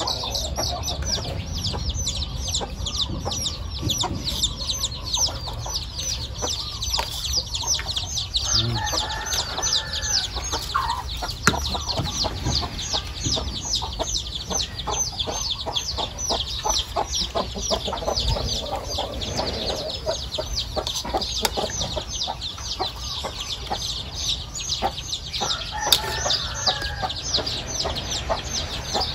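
Chickens: a steady, rapid run of high, falling peeps, several a second, with lower clucking calls breaking in twice.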